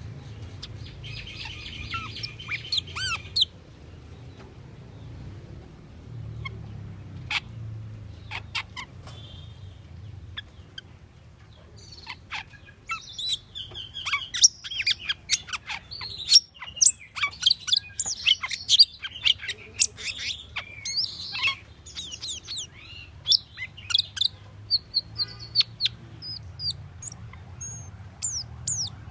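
Asian glossy starling singing: a jumble of sharp whistles, squeaks and clicky notes, sparse at first and coming thick and fast from about the middle on. A low steady hum runs underneath.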